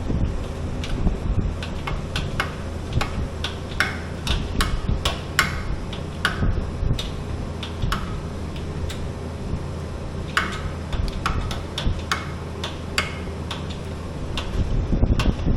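A steady low mechanical hum with many irregular sharp metallic clicks and taps over it, some ringing briefly.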